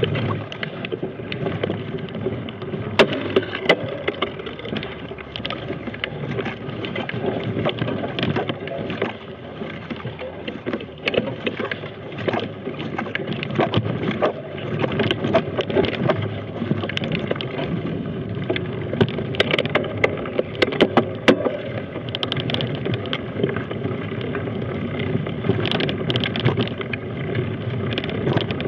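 Mountain bike riding over a rough dirt forest trail: a continuous rumble of the tyres on the ground, with frequent sharp knocks and rattles from the bike over the bumps.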